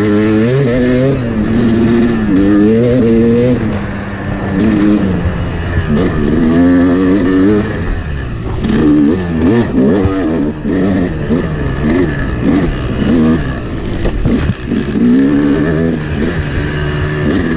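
Yamaha 250 two-stroke dirt bike engine heard on board, its pitch rising and falling over and over as the rider opens and closes the throttle and shifts through the gears.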